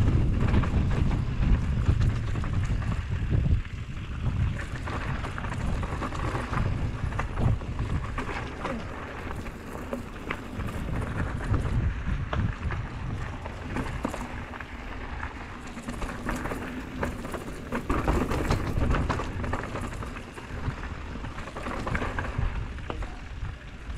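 Mountain bike riding down a rough dirt and rock trail: tyres crunching over dirt and stones and the bike rattling with many small knocks over the bumps. Wind rumbles on the handlebar camera's microphone, heaviest in the first few seconds.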